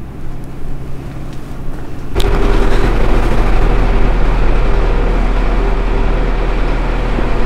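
A loud, steady low mechanical hum with a held tone, starting suddenly about two seconds in and running on without change.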